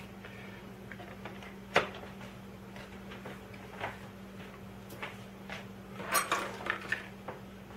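Small clicks and clinks of a plastic accessory case and small metal rotary-tool accessories being handled on a table. There is one sharp click about two seconds in, a few lighter taps, and a cluster of ringing clinks near the end.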